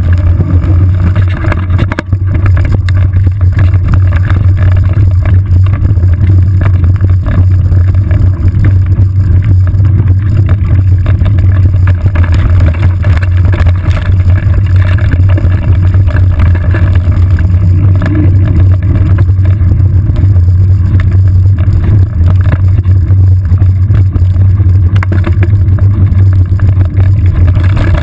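Loud, steady low rumble of wind and vibration picked up by a saddle-mounted GoPro HD2 as a mountain bike rides a rough dirt and rock trail, with frequent short knocks and rattles from the bumpy ground.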